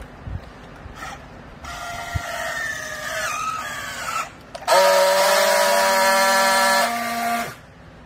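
Battery-powered handheld plastic-strap strapping tool working on a bale strap: its motor whines with a pitch that sags as it tensions the strap, then after a brief pause it gives a louder steady buzz for about three seconds while friction-welding the strap seal, cutting off suddenly near the end.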